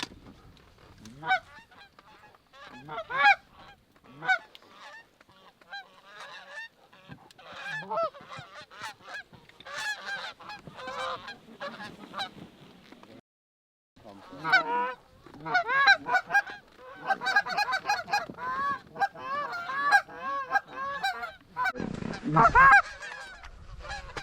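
A flock of geese honking, many overlapping calls close by, with a short break about 13 seconds in and a low rumble near the end.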